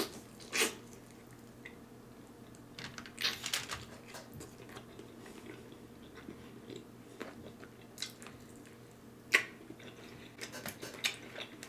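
A person chewing and biting tender smoked turkey leg meat, heard close up as scattered wet mouth clicks and smacks. A few louder ones come about three and nine seconds in.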